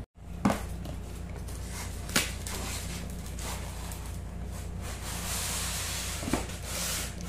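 Cardboard gift box being handled and opened: a few sharp knocks of cardboard about half a second, two seconds and six seconds in, and rustling and scraping as the box is tipped, over a steady low hum.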